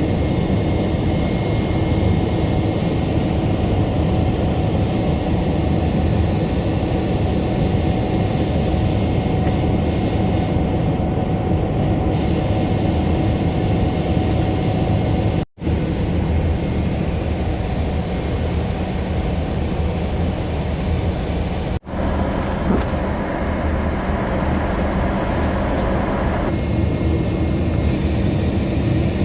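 Steady drone of a jet airliner's cabin: engine and airflow noise heard from a passenger seat. It cuts out for an instant twice, and its tone shifts slightly near the end.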